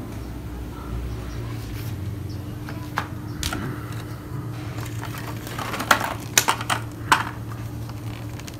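Hard, dried lim xanh (Ganoderma) mushrooms clacking and knocking against each other and the wooden floor as they are handled and picked up. There are a couple of single knocks, then a quick run of sharper clacks past the middle, over a steady low hum.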